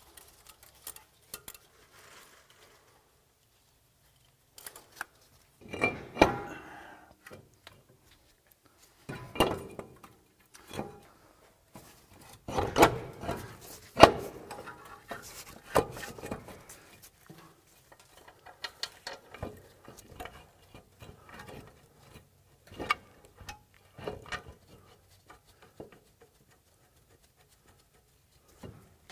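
Torque wrench and hand tools working on the bolts of a new front wheel hub bearing: scattered metallic clicks, ratcheting and clanks in short bursts separated by quiet pauses, as the hub-to-knuckle bolts are torqued to 44 ft-lb.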